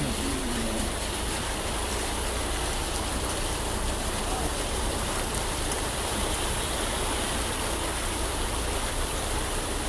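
Steady rushing noise of water from heavy rain and floodwater in a flooded street.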